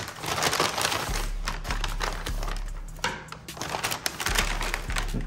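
Packaging rustling and crinkling as it is handled, with many irregular crackles.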